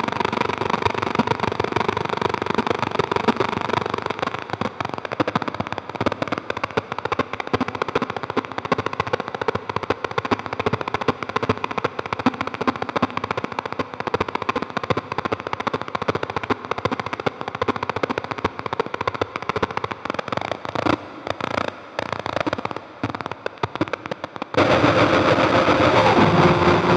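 Experimental synthesizer noise drone: an iPad sound source run through a Roland V-Synth XT, with filter, resonance and overdrive played from a Haken Continuum Fingerboard, making a dense, rapid crackle of clicks. Near the end it turns sparser and choppy, then jumps much louder with a steady tone underneath.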